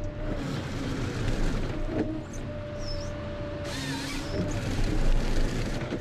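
Ponsse Scorpion King forest harvester working: a steady engine drone under a held hydraulic whine that breaks off about two-thirds of the way through and then returns, with a brief noisy burst as the H7 head feeds and cuts pine.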